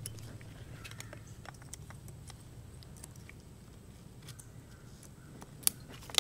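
Small metallic clicks and scrapes of a steel snap ring being worked into its groove on a Delphi CVC6 AC compressor clutch with fingers and a small tool, with two sharper clicks near the end.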